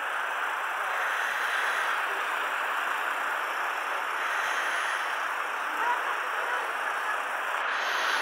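Steady, even rushing noise of the outdoors, with no clear single source.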